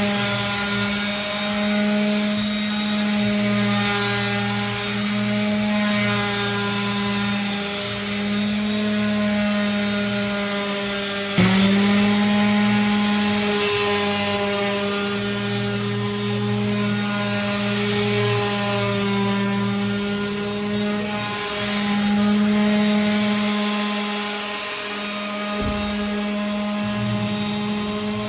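An electric power tool running steadily on wood, its motor holding one constant pitched hum. There is a sudden jump in level about 11 seconds in.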